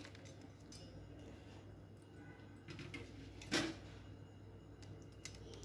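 Quiet room tone with a low steady hum, and one short sharp click a little past halfway.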